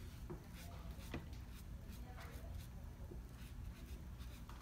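Soft, faint rubbing and brushing of damp sponges wiped over a mannequin's face to remove a facial mask, with a light click about a second in.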